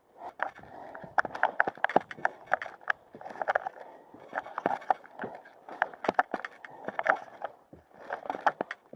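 A hiker's boots and gear clattering on steep mountain trail: irregular sharp clicks and knocks in clusters about once a second, with rustling between.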